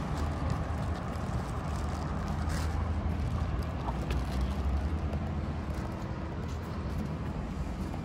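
Steady city street ambience: a low, even rumble of distant road traffic.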